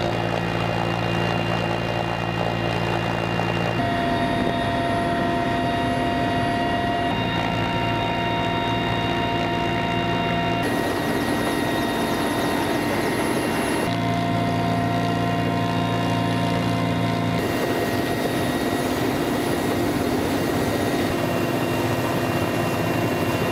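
Helicopter engines and rotor running steadily, heard from inside the cabin with the side door open: a dense, continuous whine and drone. The mix of engine tones changes abruptly several times, every few seconds.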